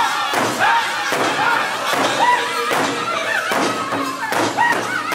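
Powwow drum group striking a large rawhide drum in unison with padded sticks, a steady beat of about two and a half strokes a second, while the men sing high, sliding vocal lines over it.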